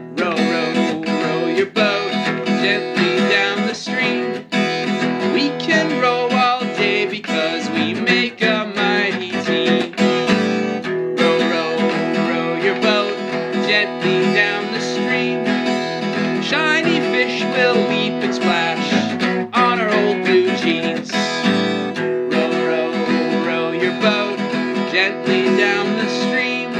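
Children's song played on strummed acoustic guitar, with a voice singing the melody over it.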